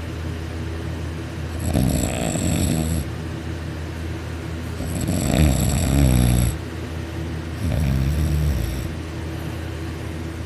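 A man snoring loudly on his back with his mouth open, the soft palate vibrating. There are three long, buzzing snores, each a second or more long and about three seconds apart, with quieter breaths between them.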